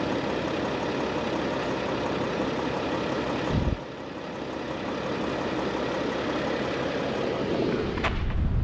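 Vehicle engine and road noise as it drives slowly, steady, with a brief low thump a little before halfway after which it goes quieter for a moment, and a sharp click near the end.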